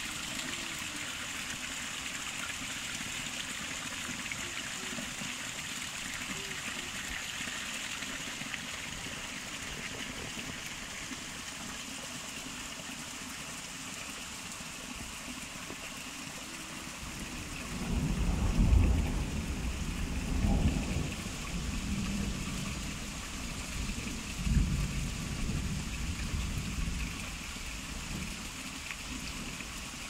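Steady hiss of rain and running water in a wet forest. From a bit past halfway, irregular low rumbles come and go, loudest just after that point.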